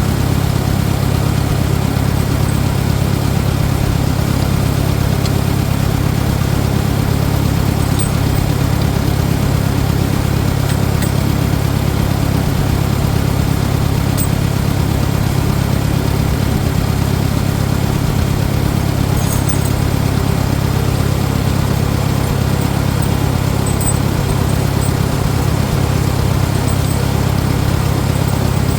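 Farmall 400 tractor engine running steadily at idle.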